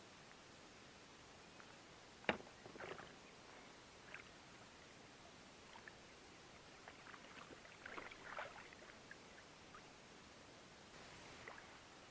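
Faint splashes and sloshing water as a wels catfish is grabbed by hand beside an inflatable boat and lifted out, water dripping off it. One sharp knock about two seconds in is the loudest sound.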